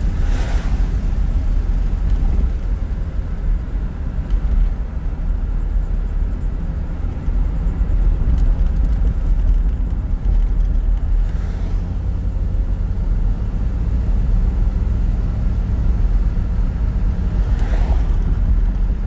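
Steady low drone of a 1976 Chevrolet Camaro's engine and tyres heard from inside the cabin while driving, the engine running smoothly with no odd noises. Brief rushing noises of oncoming vehicles going by just after the start, about two-thirds of the way through, and near the end.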